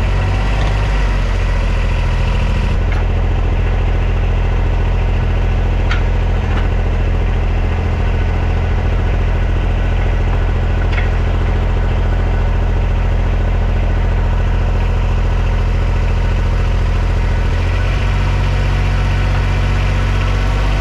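A vehicle engine running steadily with a low, even hum. Its pitch shifts slightly about 17 seconds in, and a few faint clicks sound over it.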